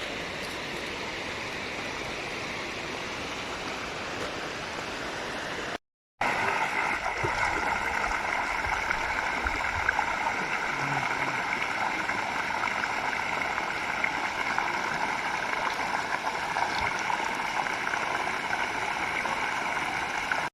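Steady rushing water of a forest waterfall. It breaks off briefly about six seconds in and comes back louder.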